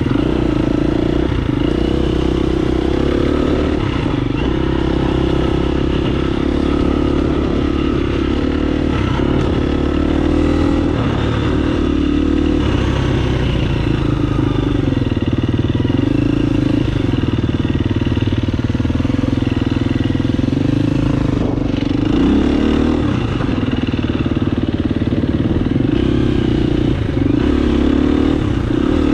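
Dirt bike engine running steadily, its revs rising and falling again and again with the throttle, the sound of riding a trail.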